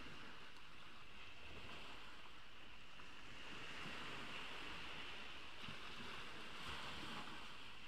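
Ocean waves washing onto a beach: a steady hiss of surf that swells a little through the middle.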